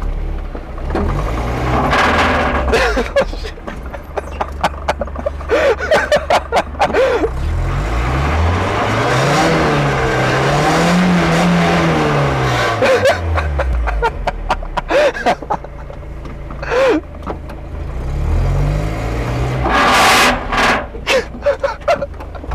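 Lowered first-generation Mazda Miata's four-cylinder engine running at low speed. It revs up about eight seconds in, holds, and falls back around fourteen seconds. Short knocks, clicks and squeaks are mixed in, with louder scraping noise twice, as the low car tries the steep driveway.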